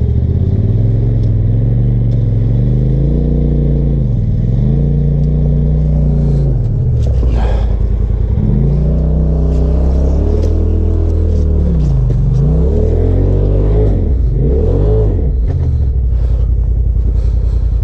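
Polaris RZR side-by-side engine revving in repeated bursts, its pitch falling away and climbing again several times. It is under heavy load, driven up a steep dirt-and-rock ledge while the winch pulls it.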